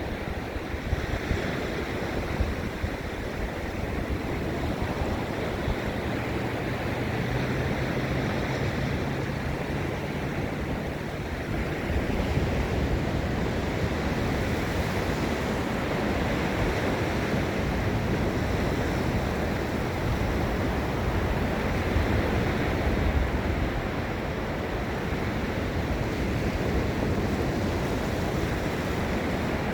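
Ocean surf breaking and washing ashore in a continuous steady wash, with wind rumbling on the microphone.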